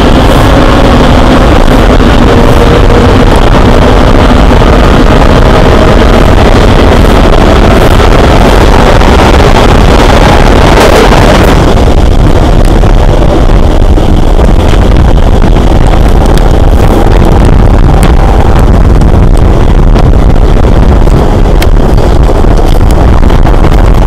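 Class 465 Networker electric multiple unit's traction motors whining, several tones slowly rising in pitch as the train gathers speed, over heavy wind rumble on the microphone. About halfway through the higher whine drops away and a lower running noise continues.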